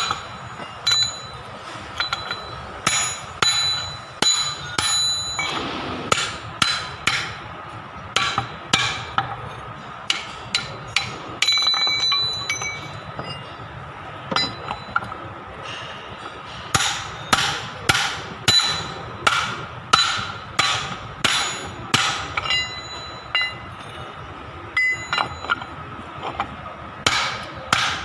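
Hammer blows on a steel drift and bolt held against the ball bearing on a Kubota front-axle bevel gear, metal on metal. The strikes come in runs of several blows with short pauses, each with a ringing note from the gear.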